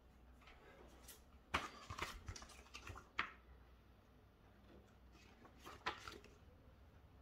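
Light handling noises: a few soft clicks, taps and paper rustles as the printed contents of a cardboard motherboard box are picked up, in two short clusters, the first about a second and a half in and the second near the end.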